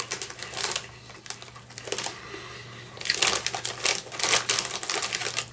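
Crinkly plastic snack bag of Chester's Fries being handled and rustled as a hand reaches in for fries. The crackling comes in irregular bursts and is busiest in the second half.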